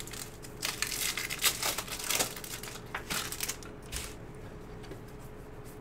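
A trading-card pack's wrapper being torn open and crinkled. A dense run of rustling fills the first couple of seconds, then a few short scrapes as the cards are handled.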